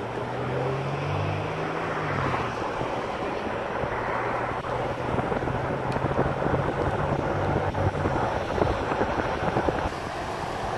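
A motor vehicle driving: steady engine hum and road noise.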